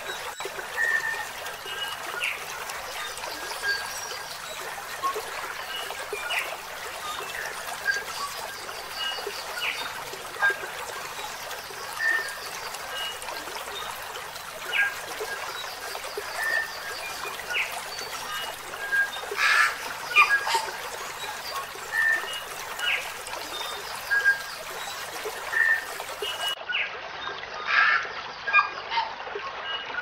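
Steady trickling water with short, high bird chirps scattered every second or two, and a louder cluster of calls about two-thirds of the way through.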